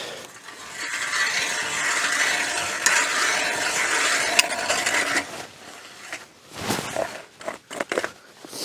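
Ice auger boring a hole through lake ice: a steady grinding of the blades cutting through the ice for about five seconds, then stopping, followed by a few scattered knocks and scrapes.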